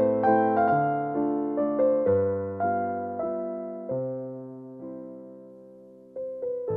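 Solo piano music: a slow melody of struck notes that winds down and fades on a held note, then starts again near the end.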